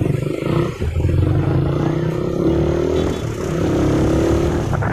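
Motor vehicle engine running steadily, a continuous low drone.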